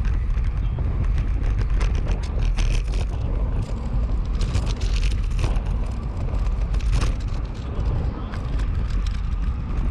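Steady low rumble of wind on the microphone and road-bike tyres rolling on tarmac while riding in a group, with a scatter of light clicks and rattles in the middle.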